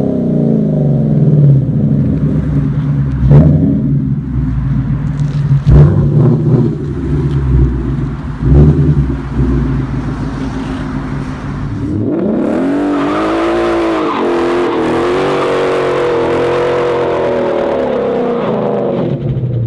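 2015 Mustang GT's 5.0 V8 running through a Ford Racing X-pipe and Magnaflow Magnapack mufflers, revved in several sharp blips. About twelve seconds in it climbs and is held at high revs for about seven seconds, then drops off near the end.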